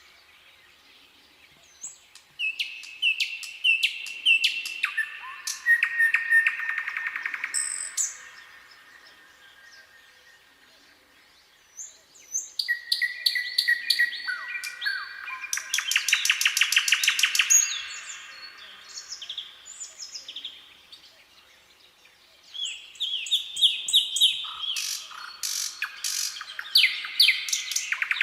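Nightingale singing: three long song phrases of rapidly repeated notes, trills and whistles, separated by pauses of a few seconds.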